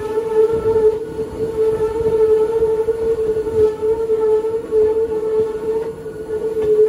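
Hakone Tozan Railway electric car, one of the line's oldest type, running on the mountain line as heard from on board: a loud, steady whine holds one pitch over the rumble of the wheels on the track.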